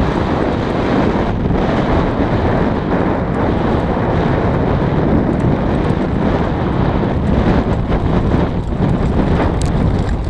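Wind buffeting a helmet-mounted GoPro's microphone on a downhill mountain bike at speed, mixed with the rumble of tyres over dirt and rocks and the rattle of the bike, with scattered small knocks.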